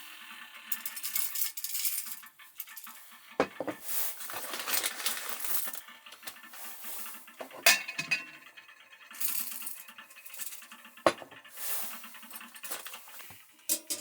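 Small clinks, taps and scraping of dishes and cutlery being handled, with a few sharper knocks.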